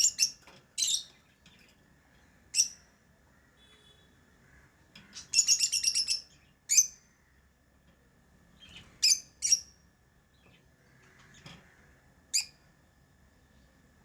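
Lovebirds giving short, sharp, high-pitched chirps every second or two, with a quick chattering run of chirps about five seconds in.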